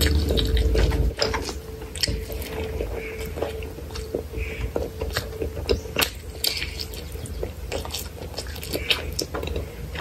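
Close-miked eating sounds: wet chewing and lip-smacking of rice and chicken curry eaten by hand, with many irregular clicks and smacks. A low rumble in the first second is the loudest part.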